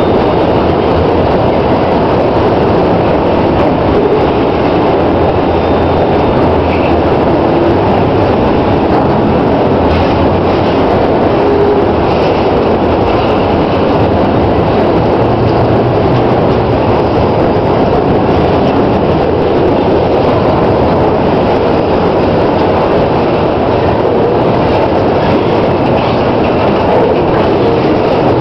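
Autorack freight cars rolling past: a loud, steady rumble of steel wheels on rail.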